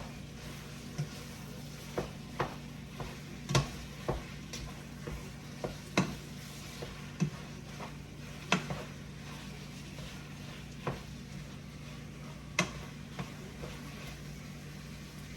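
Taco meat frying in a pan while a utensil stirs it, knocking and scraping against the pan at irregular intervals. A steady low hum and a sizzle run underneath.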